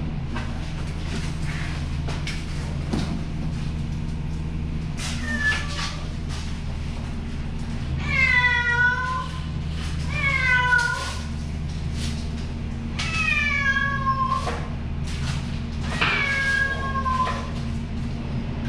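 A frightened, caged cat crying with about five drawn-out, wavering meows, the first about five seconds in and the loudest near the middle. A steady low hum runs underneath.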